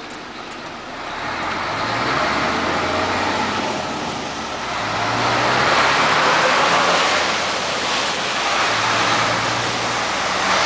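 Mercedes-Benz Actros 1848 truck's V6 diesel engine heard from inside the cab as the truck pulls away and accelerates, getting louder about one to two seconds in. The engine note breaks off briefly twice, at about four and a half and eight seconds in, as it changes gear, over steady road noise.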